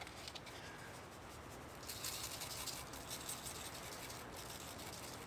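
Powdered bait cure shaken from a plastic shaker-top bottle onto shrimp in a plastic cup: a faint, fine rattling hiss of falling granules from about two seconds in until about four and a half seconds.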